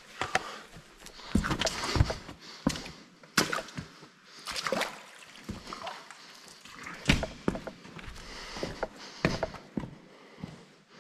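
Boots clambering over wet, muddy cave rock: irregular scuffs, scrapes and knocks with some splashing in shallow water, a few of the knocks sharp and loud.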